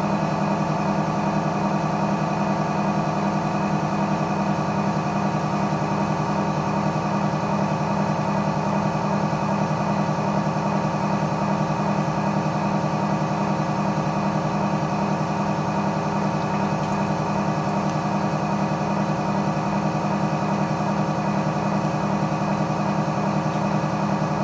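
Electric potter's wheel running at a steady speed: a constant motor hum with several fixed tones.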